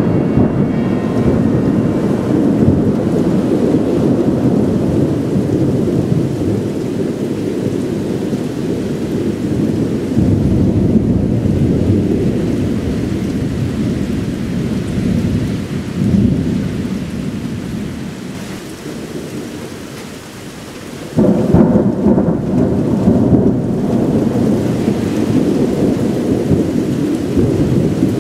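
Loud, long rolling thunder rumbling deep and low, swelling around ten seconds in and dying down toward twenty seconds. A fresh peal breaks in suddenly about twenty-one seconds in and rumbles on.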